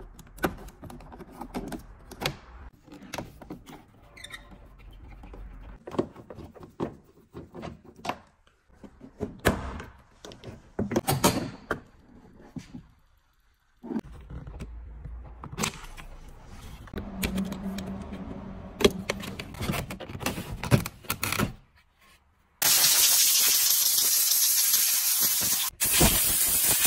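Hard plastic interior trim of a Volkswagen Caravelle being pried and unclipped, with scattered sharp clicks and scrapes of the trim tool, clips and connectors. About three-quarters of the way through, a loud steady vacuum cleaner starts up, with a brief break near the end.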